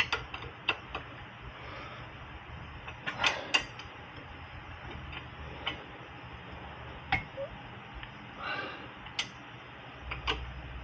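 Irregular metallic clicks and clinks of a long wrench and hand tools working the rear wheel hub's mounting bolts, about a dozen sharp ticks spaced unevenly, a few coming in a quick cluster about three seconds in.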